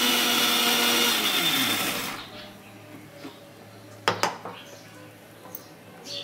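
Electric mixer grinder with a steel jar, blending sesame paste into tahini, running steadily, then switched off about a second in and winding down over the next second. Two sharp clacks come about four seconds in.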